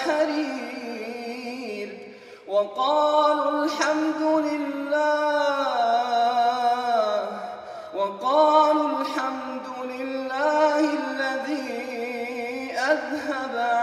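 A man reciting the Quran in the melodic tajweed style: long, drawn-out phrases that bend and ornament the pitch, with two short pauses for breath.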